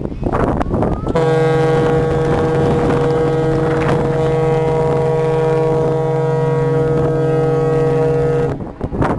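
Large passenger ferry's horn sounding one long, steady blast of about seven seconds, a deep note made of several tones, starting about a second in and cutting off near the end. Wind buffets the microphone before and after the blast.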